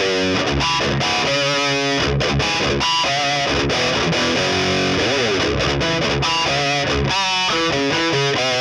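Overdriven electric guitar riffing, with a pitch slide about halfway through: a Gibson Les Paul Tribute's 490T bridge humbucker through a Horizon Devices Precision Drive and a PRS MT15 amp, played through a 2x12 cabinet with 25-watt Celestion Greenback speakers and miked with a Shure SM57.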